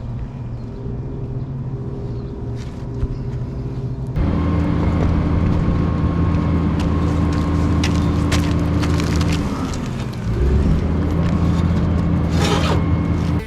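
A vehicle engine running steadily with a low, even hum. About four seconds in it becomes markedly louder, dips briefly near ten seconds, then carries on, with scattered light clicks and knocks over it.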